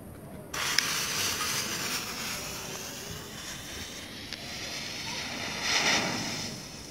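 The fuse of a coloured smoke bomb catches from a lighter and then hisses steadily as it burns, with a sharp click just after it catches. The hiss swells briefly about six seconds in as the top of the bomb flares.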